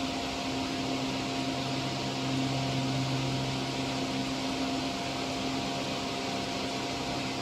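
Steady hum and whir of a jewelry laser welding machine's cooling fans running, with no weld pulses.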